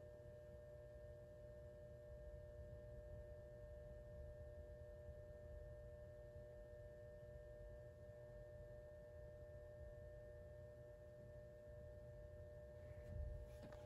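Faint, steady electrical hum with a few thin high tones held over it, from the ballast running a 100 W mercury vapor lamp while the lamp is still warming up.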